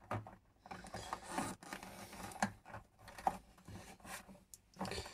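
Faint, irregular rubbing, scraping and small clicks of hands handling electrical cables at a hole in a wall.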